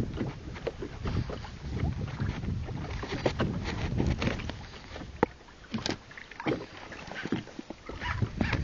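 Wind on the microphone and a low rumble on a small fishing boat at sea, with irregular knocks and clatter on board.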